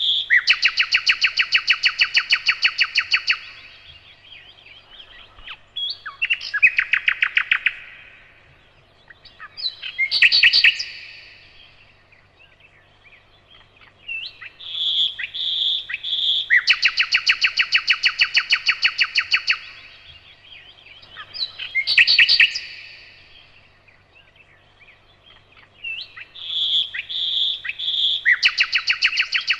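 Nightingale singing: separate phrases of a few seconds each, several of them fast runs of repeated notes, with pauses of a few seconds between phrases.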